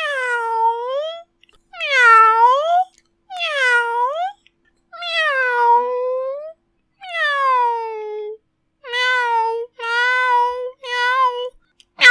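Domestic cat meowing eight times in a row, each meow dipping and then rising in pitch; the last three are shorter and come quicker.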